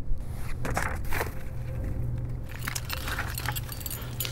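Battle sound effects: a steady low rumble under scattered crackles, clicks and rustling, which grow busier about halfway through.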